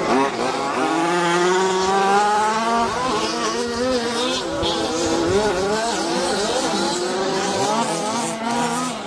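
FTX Punisher RC buggy's Nutech Thunderbolt II nitro engine, running through a Jet Pro tuned pipe with the stinger fitted, revving under throttle as the buggy is driven. Its pitch climbs steadily over the first few seconds, then rises and falls repeatedly as the throttle is worked.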